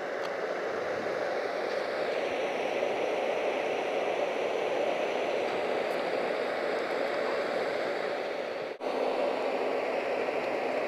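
Backhoe loader's diesel engine running steadily, an even noise that drops out for an instant about nine seconds in.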